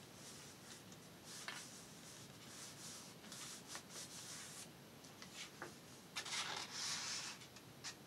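Hands rubbing paper, smoothing a freshly glued paper pocket flat onto a journal page: a soft, dry rustle in several uneven strokes, the longest about six seconds in.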